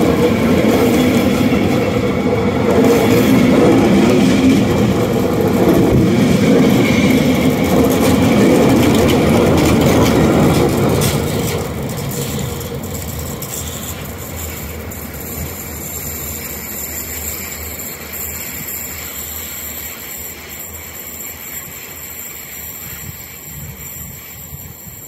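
Passenger train coaches rolling past close by, loud and steady, until the E 77 10 electric locomotive at the tail goes by about eleven seconds in; then the train recedes and its sound fades steadily, leaving a thin high wheel squeal as it rounds the curve.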